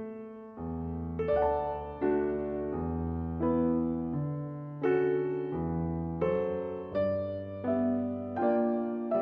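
Background music: a slow piano piece, chords struck about every half second to second and left to fade.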